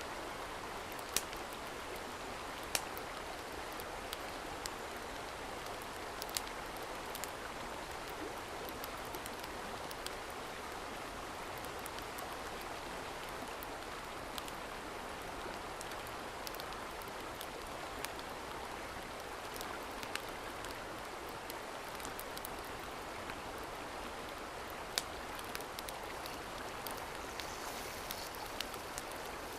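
Steady rushing of a mountain stream, with scattered sharp clicks.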